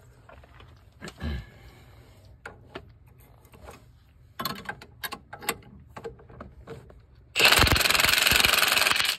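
Light knocks and clicks of tools being fitted on a nut, with one low thud about a second in, then an impact wrench hammering loudly for nearly two seconds. It is turning the nut on the threaded rod of a homemade puller, pressing a wheel hub out of its knuckle.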